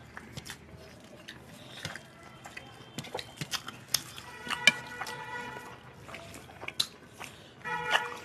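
Hand-eating sounds at a table: fingers mixing and scooping rice and curry on stainless steel plates, with scattered light clicks and clinks against the metal and wet squishing and chewing. A brief pitched ringing sounds about halfway through and again near the end.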